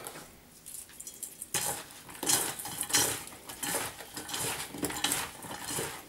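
Thin slices of raw potato being mixed by hand in a stainless steel bowl, the slices rustling and clattering against one another and the metal in quick irregular bursts. The mixing starts about a second and a half in.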